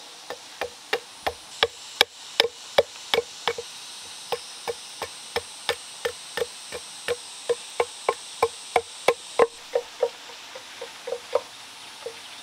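Machete blade chopping into a length of wood to shape it: sharp, regular knocks about two and a half a second, each with a short ringing note.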